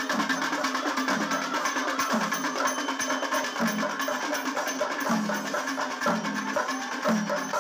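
Kerala temple percussion ensemble: chenda drums played with sticks in a fast, dense roll, while horns blow held low notes about once a second, each stepping down in pitch.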